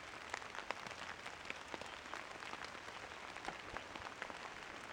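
Rain falling on fallen leaves in woodland: a steady hiss with many scattered, sharp drop ticks.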